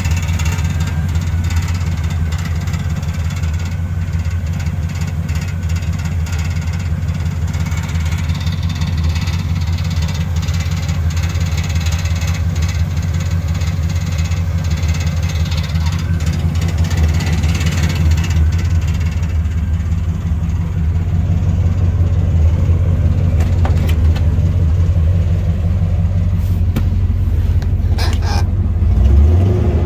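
Engine of a square-body Chevrolet pickup idling steadily, with a short rise in revs near the end.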